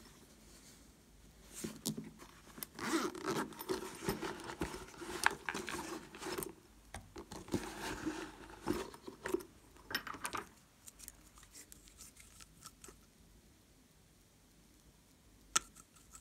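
Hands squeezing and rubbing a bear-shaped toy close to the microphone: irregular rustling and scraping with many small clicks for several seconds, then quiet. A single sharp click near the end.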